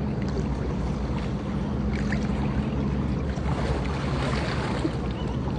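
Pool water sloshing and splashing as a swimmer moves through it and climbs out on the ladder, with the splashing a little brighter about two-thirds of the way in. Wind buffets the microphone throughout, over a steady low hum.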